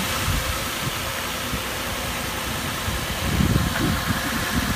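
2013 Nissan Frontier's 4.0-litre V6 idling steadily.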